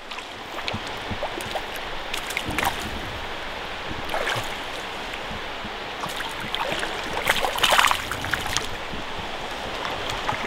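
Shallow trout stream running over a rocky bed, with a few short splashes of water now and then.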